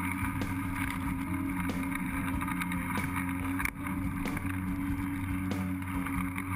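Kobalt 40V Max cordless electric lawn mower running, its motor and blade giving a steady hum as it cuts long grass, with a brief dip in level about halfway through.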